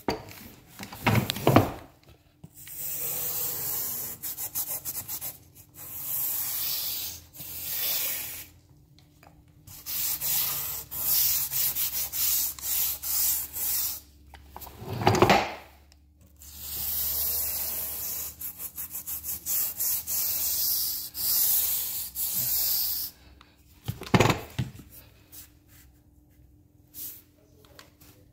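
Tip of a grout colour-sealer applicator bottle scrubbed along the grout joints of a ceramic tile floor: a scratchy rubbing in long stretches with short pauses, and two dull knocks, one about halfway through and one near the end.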